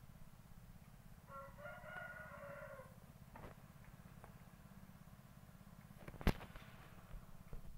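A rooster crowing once, about a second and a half long, starting about a second in. Near the end comes a single sharp click, the loudest sound, over a steady low hum.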